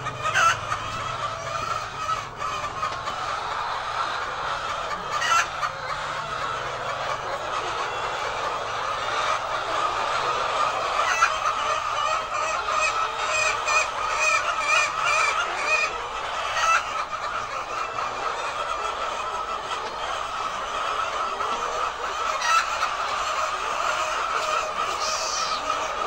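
A large flock of white laying hens clucking and calling together in a steady, overlapping chorus, with occasional louder calls standing out.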